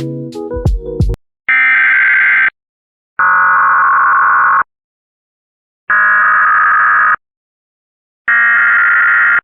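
Music cuts off about a second in. It is followed by four harsh, buzzing data bursts, each about a second long with short silences between: the digital SAME header tones that open an Emergency Alert System broadcast.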